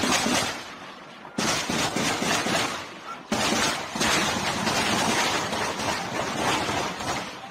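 Long bursts of rapid gunfire, one already going at the start and fresh ones starting abruptly about a second and a half and three seconds in, the last running on for several seconds before fading near the end.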